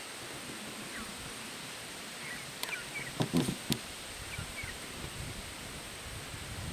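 Faint short bird chirps scattered over a steady hiss, with a brief cluster of sharp clicks and dull knocks about three seconds in.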